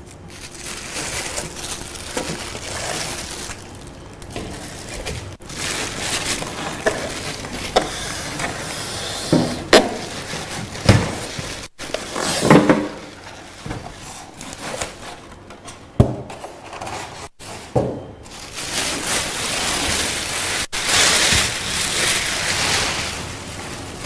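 Plastic wrap rustling and crinkling as it is pulled off a boxed stainless steel grill, with short squeaks of polystyrene foam packing blocks being worked loose and a few sharp knocks of the unit and packing against a steel table.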